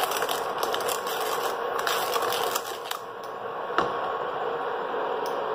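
Silicone spatula stirring and scraping a thick, cooking milk-powder mixture in a frying pan, with scattered clicks and scrapes over the steady hum of an induction cooktop running.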